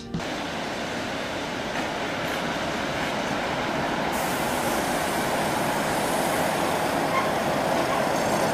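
Steady rolling and rail noise of a train, slowly getting louder. About four seconds in, the sound changes as a hiss comes in: a Dutch NS 1200-class electric locomotive hauling passenger coaches slowly along a platform.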